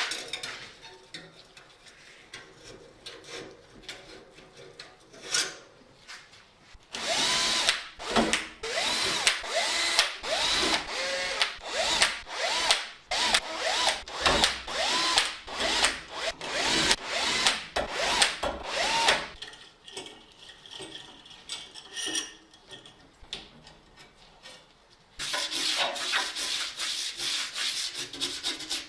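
Hand sanding or scrubbing of a bike part in steady back-and-forth strokes, about two a second, each with a squeaky rising-and-falling tone. After a pause the strokes start again, faster, near the end.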